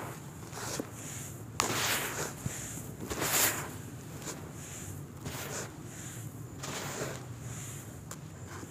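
Loose soil scooped up by hand, crumbled and let fall back into a plastic basin, rustling and pattering in repeated pours with a few sharp crunches. The loudest pours come about one and a half and three and a half seconds in.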